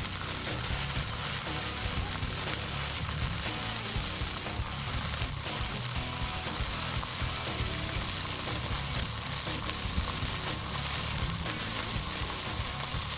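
Icy Hot BC2188 tube firework fountain spraying sparks, giving a continuous, even hiss and sizzle.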